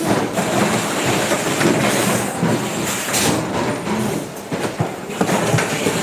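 Factory assembly-line din: stamped steel car door-check parts clinking and clattering as they are handled and pressed, over the steady noise of the line's machines, with occasional sharp metallic clanks.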